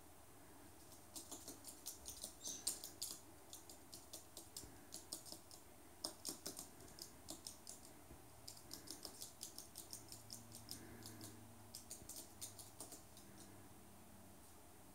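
Rainbow lorikeet's claws ticking on a hard laminate floor as it walks: a faint, irregular patter of quick clicks, several a second, in runs with short pauses.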